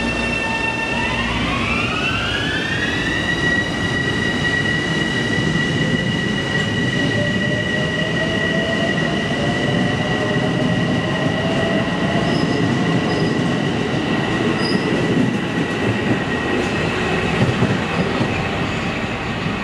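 Bombardier M7A electric multiple unit pulling away: its propulsion whine rises in pitch over the first few seconds and then holds steady, while a second, lower whine climbs slowly. Underneath runs a steady rumble of wheels on rail as the cars pass and draw off.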